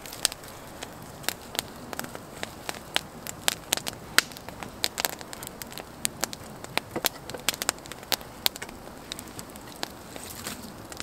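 Wood campfire crackling, with frequent sharp, irregular pops over a low steady hiss.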